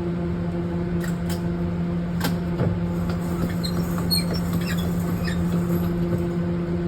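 Steady mechanical hum of ventilation fans, with scattered light clicks and faint squeaks of a paper target being handled and hung up.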